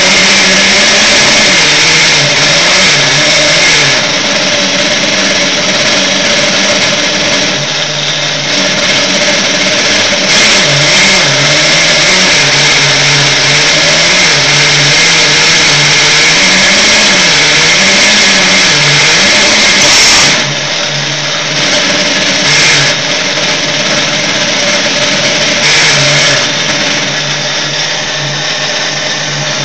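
Chinese 7x12 mini-lathe with a brushed motor running under cut while a high-speed-steel tool turns a large acetal (Delrin) workpiece: a loud steady hiss over a low motor hum whose pitch wavers up and down as the load changes. About twenty seconds in the sound changes suddenly and runs a little quieter.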